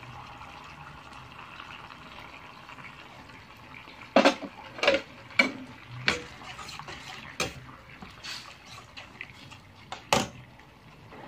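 Liquid pouring into a pan of simmering sweet-and-sour sauce. From about four seconds in, a metal ladle stirring and knocking against the metal pan gives several sharp clinks.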